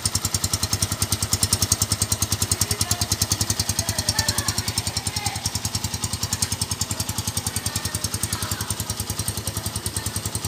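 A 2008 Honda Tiger Revo's 200cc single-cylinder four-stroke engine idling through its stock exhaust, freshly cold-started on the choke. The exhaust beats are rapid, even and steady, a sound called 'garang banget' (really fierce).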